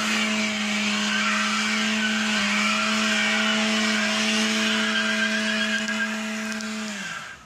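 A car stuck on an icy hill, its engine held at high, steady revs while the drive wheels spin on the ice, a constant whine over loud tyre hiss. About seven seconds in the revs drop and the sound fades away.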